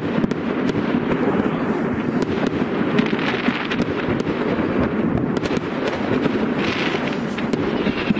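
Many New Year's fireworks going off together: a continuous din of overlapping bangs and crackles, with sharp cracks scattered throughout.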